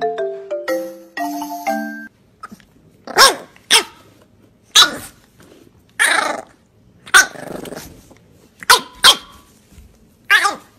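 French bulldog puppy barking: about eight short, sharp barks spread over several seconds, some in quick pairs and a few held a little longer. A brief chiming tune plays before the barking starts.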